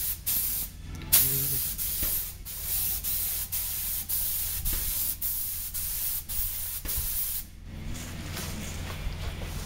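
Airmix (air-assisted airless) spray gun fed by a Binks Raptor Max 4.32 pump, spraying paint: a loud hiss in bursts with short breaks as the trigger is pulled and released, and a longer break about three-quarters of the way through. A steady low hum runs underneath.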